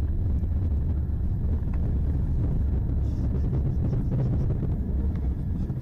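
Steady low rumble of a car driving on a snow-covered road, heard from inside the cabin.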